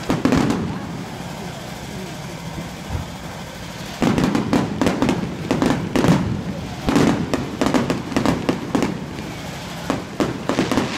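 Fireworks going off: a bang at the start fading into a quieter stretch, then from about four seconds in a rapid, dense run of bangs and crackles.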